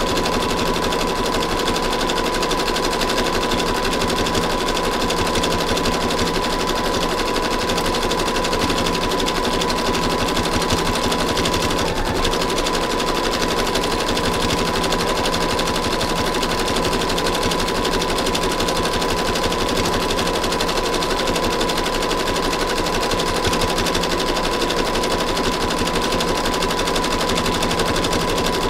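Sewing machine running steadily, its needle stitching through a coil of fabric-covered rope being sewn into a rope bowl: a fast, even clatter of stitches over a steady tone.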